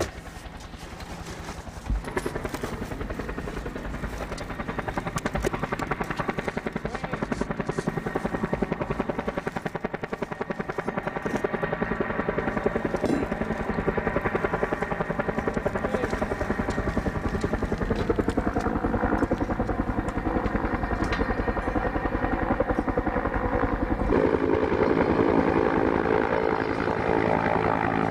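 Helicopter approaching, its rotor and engine sound growing steadily louder with a fast, even pulse. A single thump about two seconds in.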